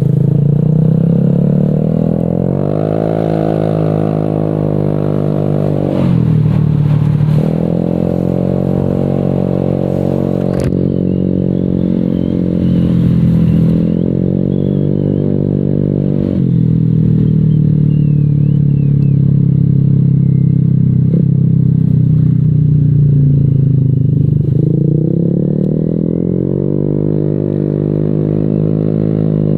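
Honda Vario 150 scooter's single-cylinder engine through an aftermarket ProLiner exhaust, heard while riding. The note rises as the throttle opens and sags back when it closes, several times over.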